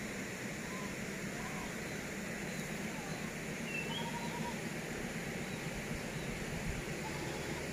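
Outdoor rural ambience: a steady hiss of background noise with a few faint, short bird chirps scattered through.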